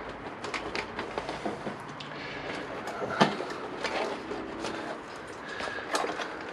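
Hands working plastic wiring connectors apart under a motorcycle's plastic tail unit: a string of small clicks and rattles as the indicator plugs are unplugged, the sharpest click about three seconds in and another near the end.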